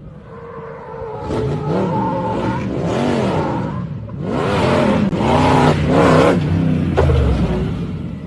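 A car engine being revved in a series of throttle blips, its pitch rising and falling again and again, loudest in the middle seconds.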